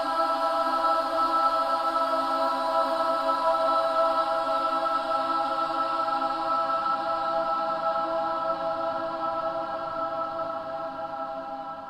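Synthesized choir pad: a sustained, chant-like chord of many held voice-like tones, fading slightly near the end and cutting off abruptly.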